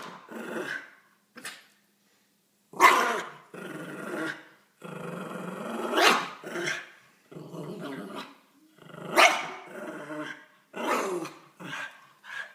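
Dogs growling and barking aggressively at what they take for a strange dog, with sharp loud barks about three, six and nine seconds in and growling between.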